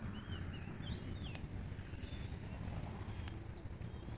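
Faint rural garden ambience: a few small bird chirps in the first second or so, over a steady high-pitched insect drone.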